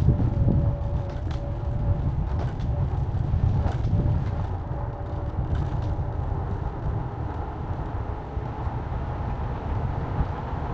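Moving vehicle running steadily: a continuous low rumble with a faint, steady whine above it and a few light clicks and knocks.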